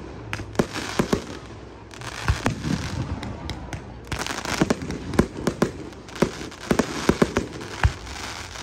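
Aerial fireworks display: a rapid, irregular string of sharp bangs from bursting shells, over a dense crackle that thickens after the first couple of seconds.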